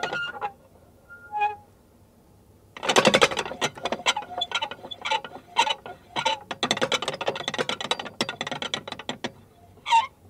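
Prayer wheel being turned by hand, close up: dense metal rattling with squeaks and creaks from the turning wheel. The rattling stops just after the start, with a short squeak and a pause, then resumes for about six seconds and ends in a single creak near the end.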